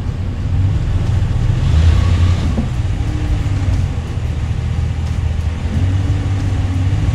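The Ram 1500 Rebel's 5.7-litre Hemi V8 running at low revs as the truck creeps forward up onto drive-on ramps, with a brief swell about two seconds in.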